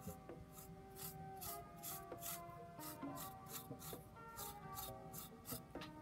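A metal tool scraped repeatedly across polymer clay roof tiles to texture them, making short scratching strokes about two or three a second, over soft background music.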